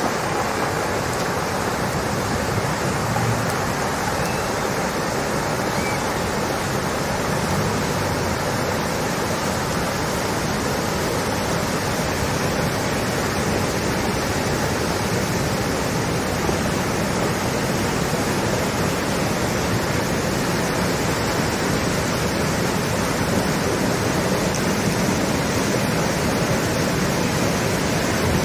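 Muddy floodwater rushing through and over a concrete culvert: a steady wash of water noise that grows a little louder near the end.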